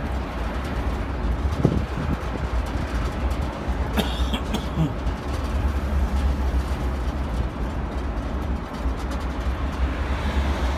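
Steady rumble of the Zocotren, a rubber-tyred tourist road train, heard from on board while it drives along, with a couple of short knocks or rattles about two and four seconds in.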